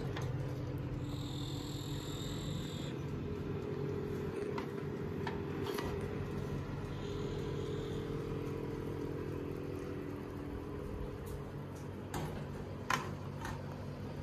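Countertop electric oven humming steadily, with several sharp clinks and knocks from the metal cake pan being handled.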